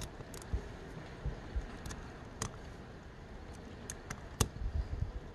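Scattered light clicks and taps of small metal parts being handled, with a few low thumps, as the engine's raw-water impeller pump is put back together.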